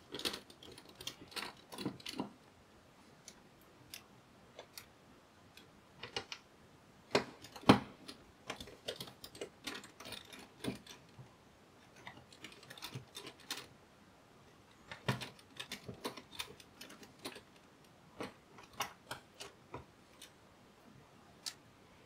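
Scattered small clicks and ticks of a precision screwdriver with a PH00 bit undoing the tiny screws that hold the fan shroud to a laptop's heatsink, coming in short clusters with pauses between.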